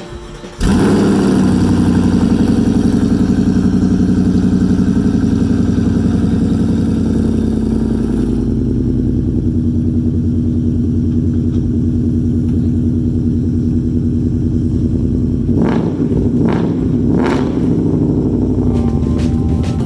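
Ford Mustang's 5.0 Coyote V8 starting up and running at a high idle, which settles to a lower, steadier idle about eight seconds in. Near the end come two quick throttle blips.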